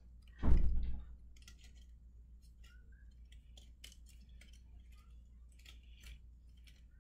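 Small clicks and ticks of the flat pieces of a model Eiffel Tower kit being handled and pressed out by hand, scattered irregularly, with one brief louder rustle about half a second in.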